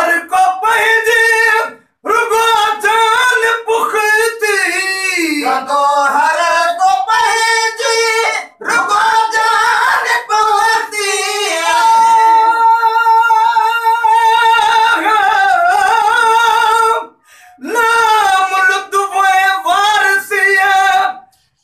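Men's voices singing an unaccompanied devotional song, a melody with long held notes, taken up in turn by different singers and broken by short pauses for breath.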